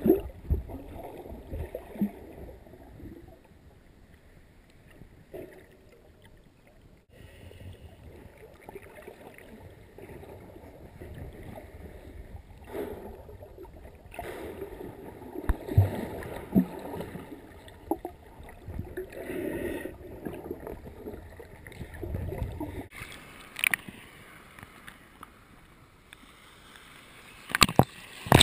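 Muffled water heard from below the surface: a low, dull rumble with occasional knocks and gurgles. In the last second the camera breaks the surface and water splashes and sloshes.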